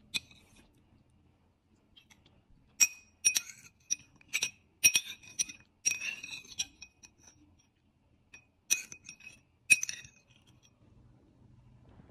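Metal spoon clinking and scraping against a ceramic bowl, sharp ringing clinks in a quick run from about three to seven seconds in, with two more near the end.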